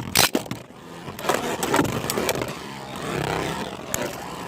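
Two beyblades, one of them 3D-printed, spinning and scraping around a beyblade stadium with a steady whirr. Sharp clacks mark their collisions: a loud one just after the start and several lighter ones after it.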